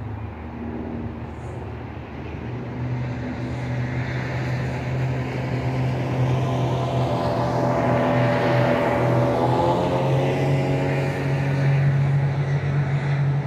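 Speedboat engine passing along the river: a steady drone that grows louder over the first several seconds, its pitch dropping as it goes by about eight or nine seconds in.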